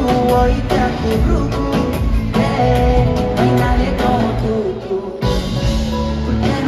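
Live pop band playing in an arena: drums keeping a steady beat under guitar and a singing voice, with the hall's echo. The beat thins out briefly about five seconds in, then comes back.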